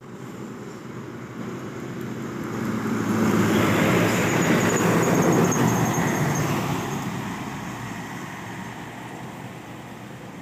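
A line of heavy cargo trucks driving past close by: engine and tyre noise builds over a few seconds, is loudest in the middle, then fades as they move off.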